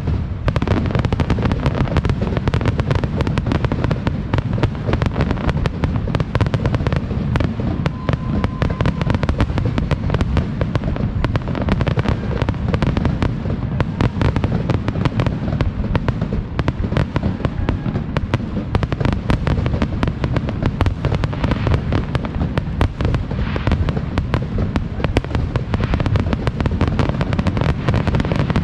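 Fireworks going off in a dense, continuous barrage: rapid, overlapping bangs one after another without a pause.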